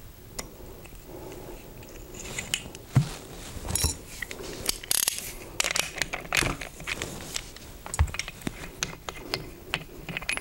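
Metal handling sounds from hand tools and stainless-steel mechanical seal parts on the shafts of a Unibloc PD positive displacement pump: scattered clicks and clinks, sharp knocks about three and eight seconds in, and a scraping rasp about five seconds in. A wrench on a rotor bolt turns the shaft while the seal collars are worked off.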